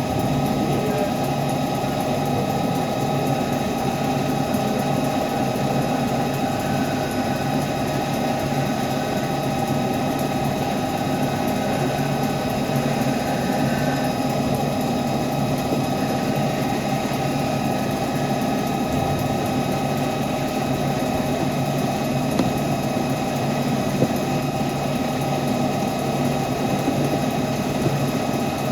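CNC lathe running steadily while machining a pinion: a constant mechanical hum with several steady high tones over it and a couple of small clicks near the end.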